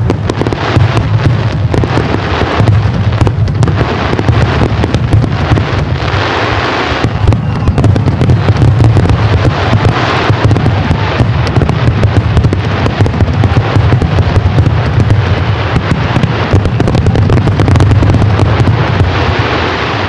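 Aerial fireworks going off in a continuous dense barrage, loud and unbroken: many overlapping bangs and crackles over a deep rumble.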